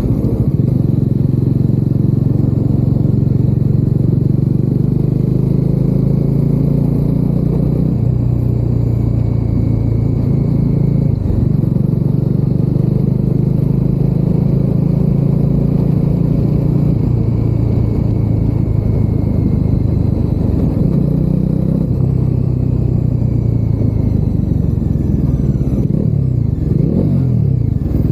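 Bajaj Dominar 400's single-cylinder engine running under way, heard from inside the rider's helmet. The engine note shifts several times as the speed changes, with a brief rise in pitch near the end.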